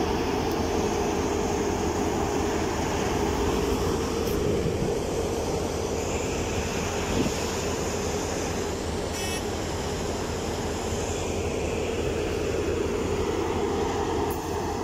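Asphalt paver's engine and screed machinery running steadily with an even hum.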